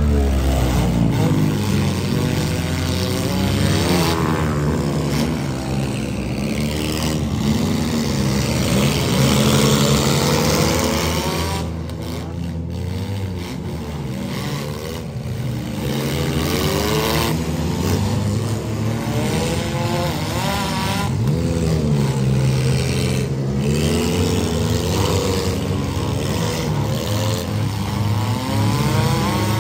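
Several stock car engines revving at once, their pitches rising and falling over and over as the cars accelerate, back up and ram each other in a demolition derby.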